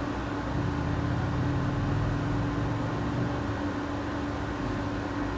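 Steady background hum with one constant low tone.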